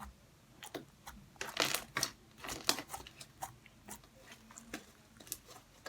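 Stiff, over-activated homemade slime being squeezed and pulled in the hands. It gives off faint, irregular small wet clicks and crackles, several a second.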